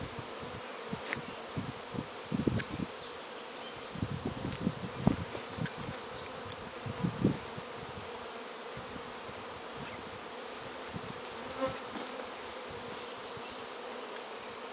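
Swarm of honey bees flying around their hives, a steady buzzing hum from many bees at once; newly installed bees are making orientation flights around their new hives. A few low thumps on the microphone come in the first half.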